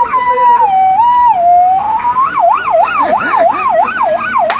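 A man imitating an emergency-vehicle siren with his voice: a high two-tone hi-lo wail stepping between two pitches, which about two seconds in switches to a fast rising-and-falling yelp of about three swoops a second. A sharp click sounds near the end.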